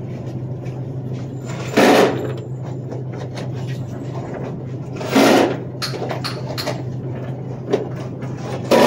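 A steady low hum with three short, loud bangs about three and a half seconds apart.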